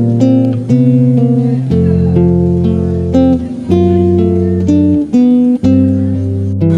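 Background music led by guitar, plucked and strummed chords changing about every second.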